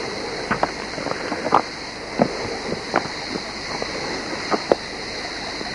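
Footsteps crunching on dry leaves and twigs, heard as irregular crackles, over the steady rush of a small stream.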